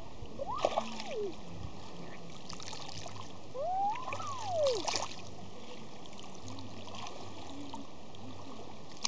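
Water splashing in shallow lake water as a child moves and slaps at the surface, in two short bouts: about half a second in and again around four to five seconds in. Each bout comes with a long call that rises and then falls in pitch, over a steady hiss.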